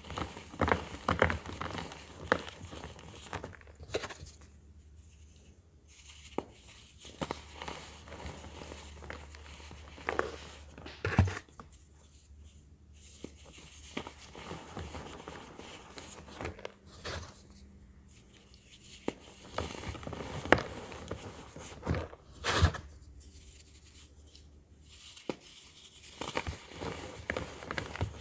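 Hands crushing pressed baking soda blocks, which crunch and crumble in irregular sharp crackles, with short pauses between squeezes.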